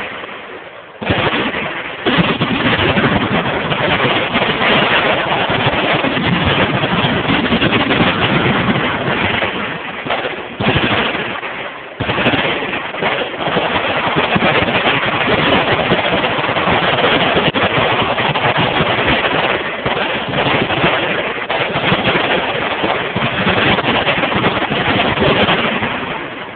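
Sustained automatic gunfire from several machine guns firing at once, merging into a nearly continuous rattle with short lulls about a second in and again around eleven seconds in.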